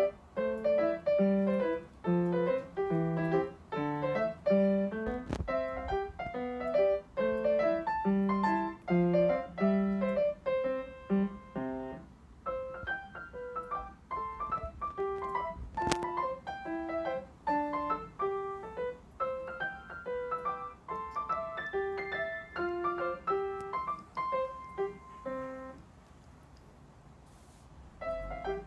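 Background piano music, a light tune of single notes in a steady rhythm. It breaks off a couple of seconds before the end, then starts again.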